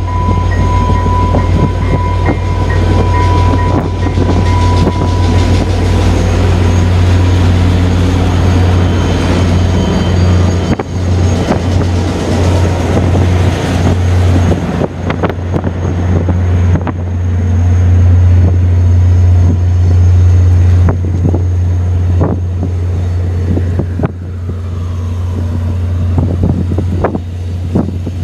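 VIA Rail passenger train rolling past, its cars clattering over the rail joints with many short clicks. A steady tone fades out over the first few seconds.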